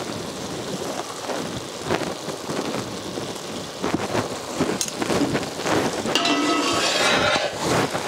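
Thick ash gourd halwa bubbling and sizzling in ghee in a wide brass pan, with the scrape of a spoon and then a long spatula stirring through it; the stirring gets louder near the end.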